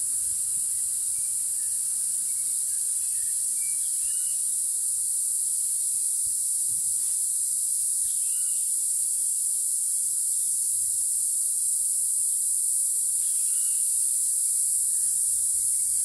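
Steady, high-pitched insect chorus of the tropical rainforest, with a few faint chirping bird calls every few seconds.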